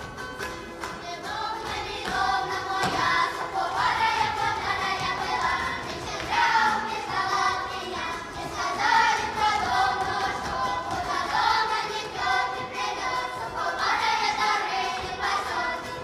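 Children's folk ensemble singing a Russian folk song together, in phrases of a few seconds each, starting about a second in.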